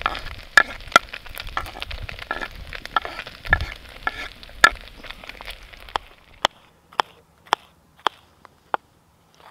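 Diced onion scraped off a bamboo cutting board into a stainless pot of browning meat, with food sizzling and scattered clicks of the knife against the board. About six seconds in, a knife chops celery on a wooden cutting board in steady, sharp strokes about twice a second.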